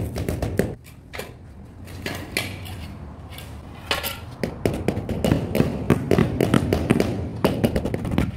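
Steel trowel scraping wet cement mortar, then the clatter of a large ceramic floor tile being laid and a rubber mallet tapping it down into the bed, with many quick taps in the second half.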